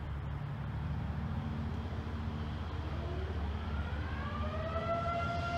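Diesel locomotive engine running as the locomotive approaches. Past the middle its air horn comes on, rising in pitch and getting louder, then holds one steady note.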